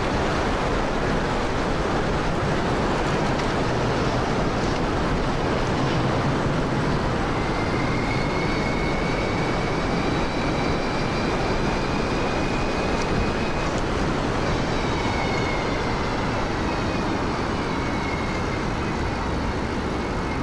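A 2000 W home-built electric bike being ridden at speed: a steady rushing noise. From about a third of the way in, a faint high whine from the electric motor glides up and down in pitch.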